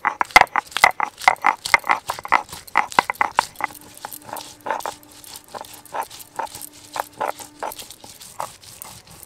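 Ginger, garlic and green chillies being ground by hand on a stone, with repeated sharp stone-on-stone strokes, quick at first and slowing to about two a second after about three seconds.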